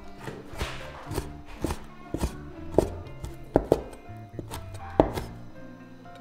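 A knife chopping on a cutting board: about seven separate, irregularly spaced chops, the loudest in the second half, over background music.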